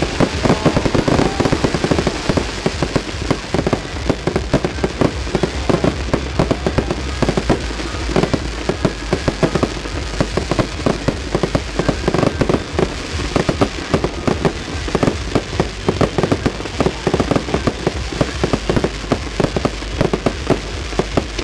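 Fireworks display: a dense, continuous barrage of bangs, pops and crackling from shells and comets bursting, many reports a second with no pause.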